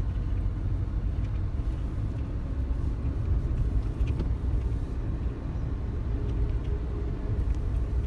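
Steady low rumble of a car's engine and road noise, heard from inside the cabin while the car is driving.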